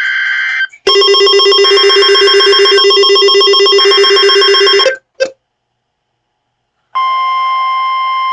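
NOAA Weather Radio alert sequence: a short burst of data tones, then a loud, rapidly pulsing ringing alert tone for about four seconds, a gap of silence, and near the end a steady alarm tone of about 1 kHz starts, the weather radio's warning alert tone ahead of a new warning.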